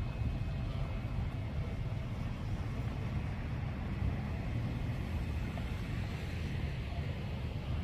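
Gas fire pit burning, its flames rising through lava rock with a steady low rumble and soft hiss.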